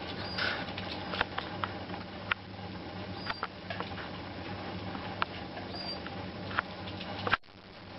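Shar Pei puppies scrabbling and pawing on a linoleum floor and against a wooden cabinet: scattered sharp clicks and taps of claws, over a low steady hum. The sound cuts off abruptly near the end.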